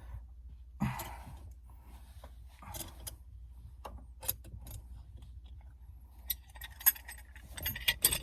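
Scattered clicks and knocks, then a run of metallic jingling and clinking from about six seconds in, as a stuck factory shift knob is worked and turned loose from the manual shifter with a C-clamp.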